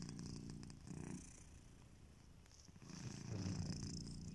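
Sleeping domestic cat snoring in rhythm with its breathing: one breath ends about a second in, and the next begins about two and a half seconds in.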